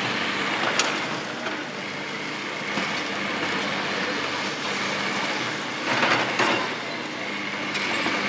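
Hydraulic excavator running steadily as its demolition shear crushes reinforced-concrete stadium seating, with a sharp crack about a second in and two louder crunches around six seconds in.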